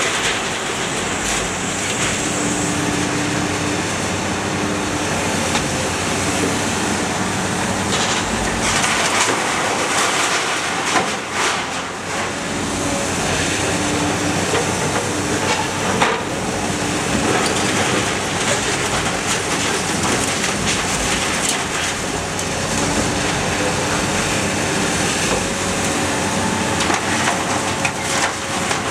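Iron Pack car baler running: a steady, loud mechanical din from the machine with intermittent hums and occasional sharp clanks.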